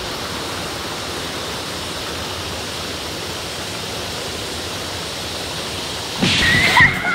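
Shallow creek water rushing steadily over a small rocky cascade. About six seconds in, louder background music with a held high note starts over it.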